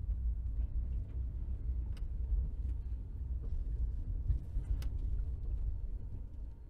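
Car interior ambience: a steady low rumble of engine and road noise heard from inside the cabin, with a couple of faint clicks. The rumble drops away near the end.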